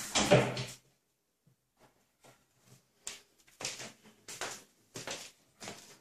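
A cat hanging its weight on a metal lever door handle: the handle and latch clatter and the door comes open, loudest about a third of a second in and over before the first second ends. From about three seconds in, soft footsteps on a wooden floor, roughly a pair every second.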